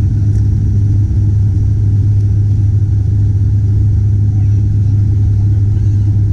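Turboprop airliner's engines and propellers, a steady deep drone heard from inside the passenger cabin.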